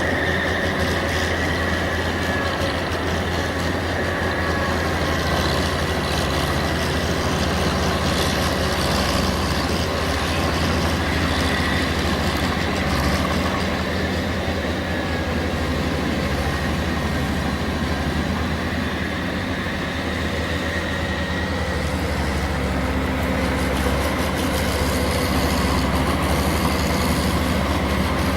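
Engine of a tractor ploughing a wet paddy field, running steadily under a low, even drone that hardly changes in level.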